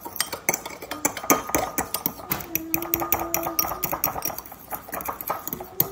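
Metal fork stirring sauce in a ceramic bowl, clinking and scraping against the bowl's sides in rapid, uneven taps.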